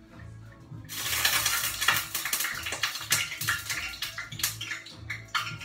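A batter-coated strawberry shortcake roll going into a pot of hot oil for deep-frying: about a second in, the oil breaks into a loud, crackling sizzle full of sharp pops that keeps going.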